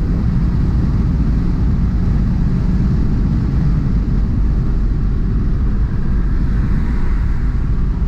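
Cabin sound of a VW Passat 1.8T's turbocharged four-cylinder engine and road noise while driving, a loud steady low rumble.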